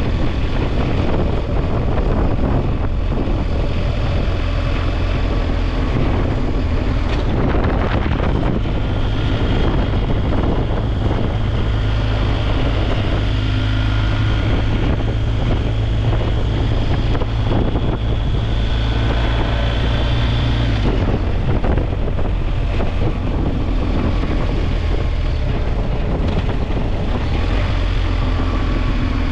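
BMW R1250GS boxer-twin engine running at a steady road speed, with wind rushing over the microphone. About two-thirds of the way through, the engine note drops as the bike slows.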